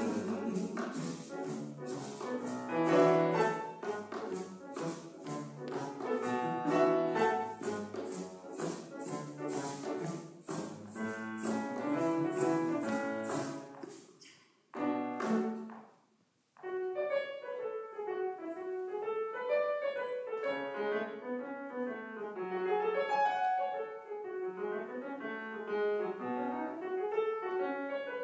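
Piano and string quintet playing an instrumental break of a swing song, with sharp regular clicks keeping the beat. About fourteen seconds in the music stops briefly, then the piano plays a flowing solo line that runs up and down.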